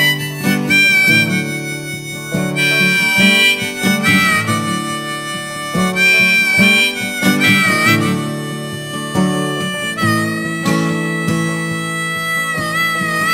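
Harmonica playing long held notes with bent, wavering pitches over a strummed acoustic guitar: the instrumental opening of a slow blues-folk song.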